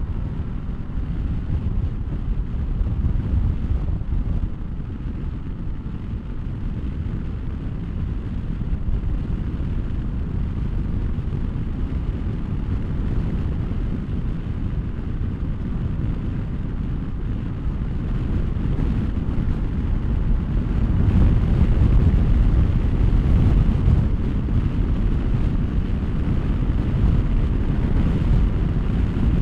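Wind buffeting the microphone on a moving motorcycle, over the low running of the 2023 Honda SCL500's parallel-twin engine and road noise. It grows louder for a few seconds about two-thirds of the way through.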